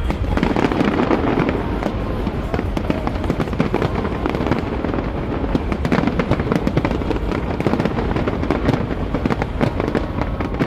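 Fireworks display going off in a rapid, continuous barrage of bangs and crackles.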